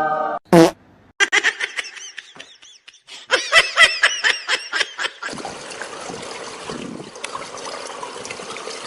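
A person laughing in quick bursts, in two runs of rapid, rising-and-falling pulses, followed by a steady hiss over the last few seconds.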